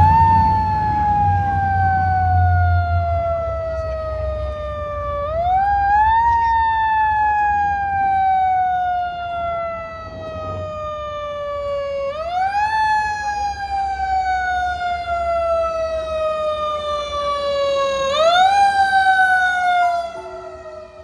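Fire engine siren rising quickly in pitch, then falling slowly, four times about six seconds apart. A low vehicle rumble sits under it in the first few seconds.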